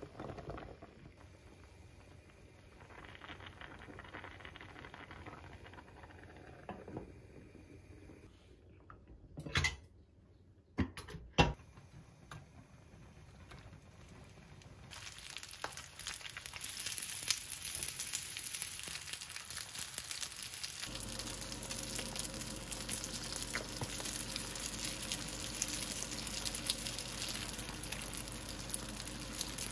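Flat dumplings sizzling as they pan-fry on low heat in a square nonstick pan, the sizzle building about halfway through and then holding steady. Before it, a quiet stretch broken by a few sharp knocks.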